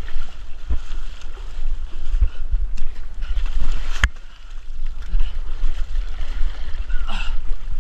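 Low, muffled rumble of movement and water sloshing, picked up by a body-worn action camera as a runner wades out of muddy water and scrambles up a dirt bank, with a sharp knock about four seconds in.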